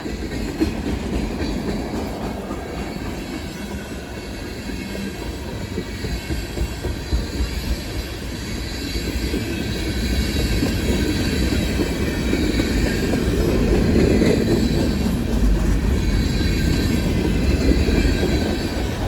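Freight cars of a long CSX freight train rolling past, with a steady rumble of wheels on rail that grows louder about halfway through.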